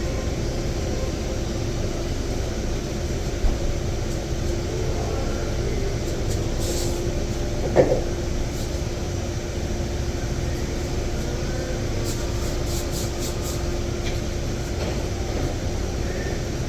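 Steady machine running, a constant rumble with a low hum. A short thump comes about three and a half seconds in and a louder knock near eight seconds, then a quick run of faint clicks later on.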